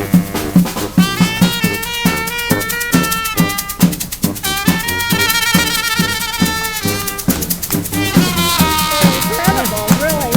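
Street brass band playing live: horns holding notes and chords over a steady drumbeat and other percussion.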